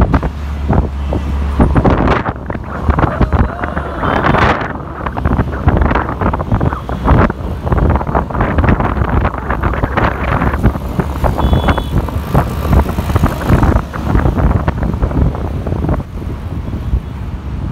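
Wind buffeting the microphone over steady engine and road noise from a ride through city traffic. A short high beep sounds about twelve seconds in.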